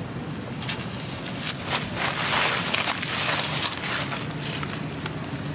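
Dry fallen leaves crackling and rustling as a macaque's hands rummage through them, loudest from about two to three and a half seconds in.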